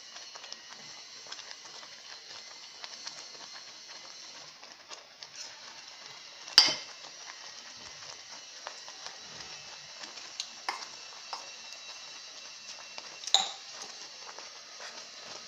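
Oats cooking in a steel pot on a low gas flame with a faint steady sizzle, and scattered metal clicks and clinks against the pot, two of them sharp and loud, about six and thirteen seconds in.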